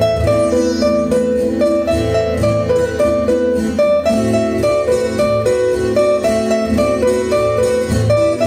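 Background guitar music: a plucked melody over lower notes.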